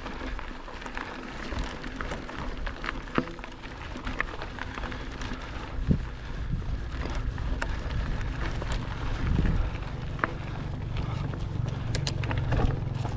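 Mountain bike riding along dirt singletrack: a steady rumble of tyres on the trail with scattered clicks and rattles from the bike, and wind on the microphone. The rumble grows louder about halfway through.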